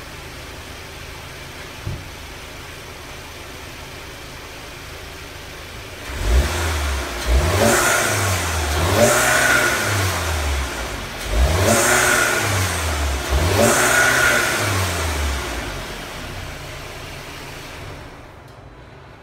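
2016 Audi A3's 2.0-litre TFSI turbocharged four-cylinder idling, then revved about four times in quick blips, each rising and falling in pitch before it settles back to idle. The intake and exhaust are completely stock, and the sound is pretty gutless.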